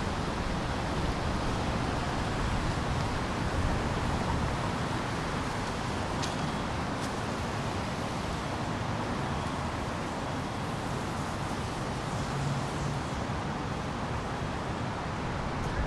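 Steady city street noise of passing car traffic.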